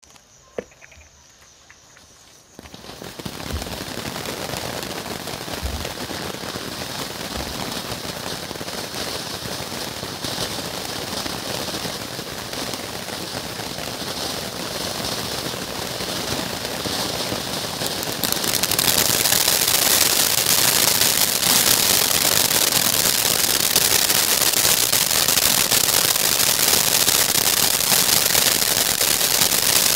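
Jumbo Fireworks Colour World Fountain, a ground fountain firework, burning: after a short quiet spell with one sharp click, a steady rush of spraying sparks starts about three seconds in, and it turns louder and more crackly about eighteen seconds in.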